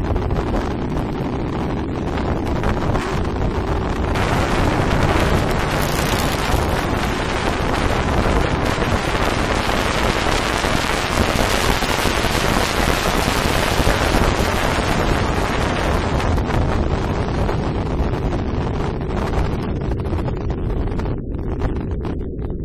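Wind rushing over a helmet-mounted camera's microphone on a moving motorcycle. It gets louder and hissier from about four seconds in, stays strong through the middle, and eases off near the end.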